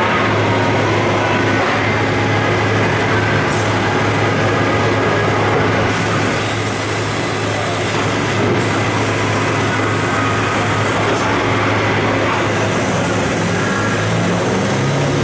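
Mori Seiki MH-50 horizontal machining center running with flood coolant spraying inside its enclosure: a steady, dense spray-and-machining noise over a low machine hum, which steps up in pitch near the end.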